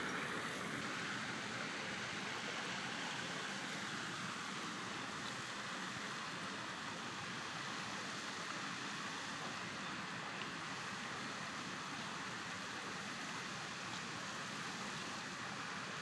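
Steady rushing of flowing river water, an even hiss that eases off slightly over the stretch.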